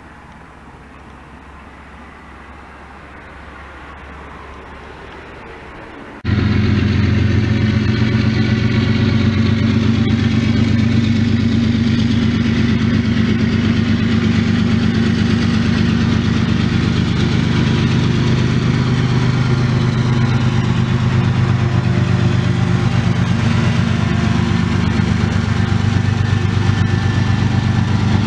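A faint outdoor rumble of a truck passing on the road. About six seconds in it cuts suddenly to the loud, steady drone of CN diesel locomotives at the head of a slow-moving, empty grain train as they approach and pass close by.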